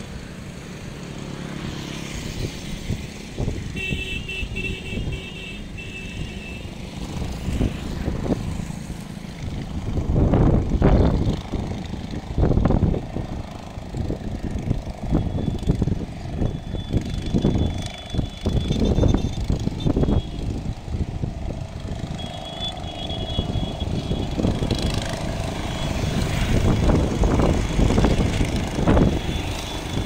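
Wind buffeting the microphone in uneven gusts over the rumble of passing road traffic, with the loudest surges about a third of the way in and again near the end.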